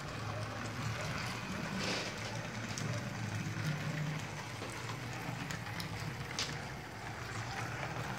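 Self-driving miniature model bus running along a layout road: a steady low hum of its small electric motor, with a few faint clicks.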